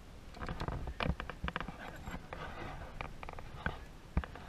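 Scattered sharp clicks and knocks with rustling from riders settling onto a chairlift chair as it pulls out of the station, the busiest cluster about a second in.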